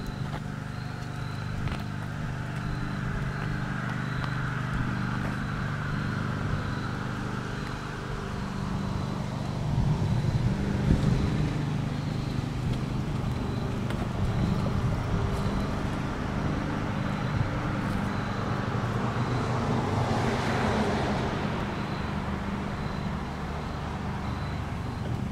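A steady engine hum from an unseen vehicle, with a vehicle passing by about twenty seconds in, its noise swelling and fading.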